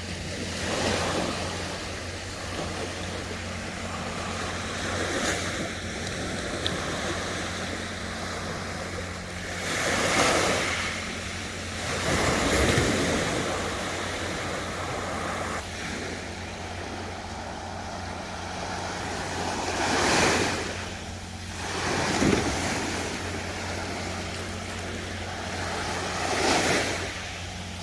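Sea waves breaking on the shore: a surge of surf swells and fades every few seconds, over a steady low wash.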